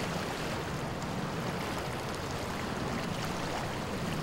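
River water rushing steadily over a shallow, stony riffle.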